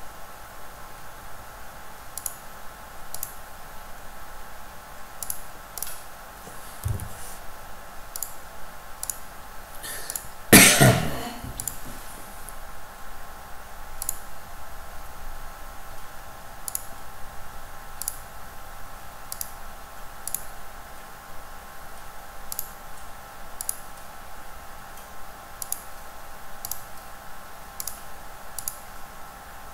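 Computer mouse clicks, single sharp clicks scattered about once a second, over a steady background hum. About ten seconds in comes one loud, sudden noise lasting about a second.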